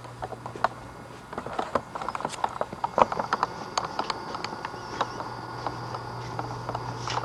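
Irregular light clicks and taps, thickest in the middle, from a 1990s camcorder being handled and carried between rooms, over a steady low hum.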